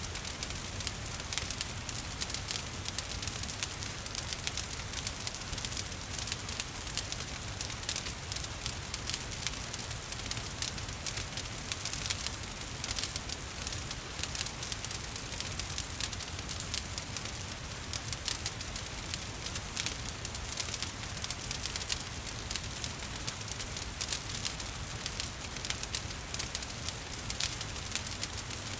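Wood fire crackling and popping in a fireplace with steady rain falling behind it: many quick, irregular snaps over an even hiss and a low rumble.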